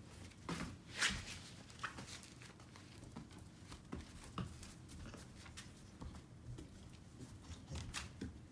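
Scattered light clicks and scuffs of dogs moving about and playing on a rug and wooden floor, a Great Dane puppy among them, the loudest click about a second in.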